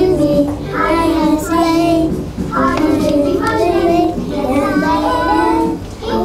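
A small group of young girls singing an English-lesson children's song from their textbook together, in sung phrases with short breaks between them.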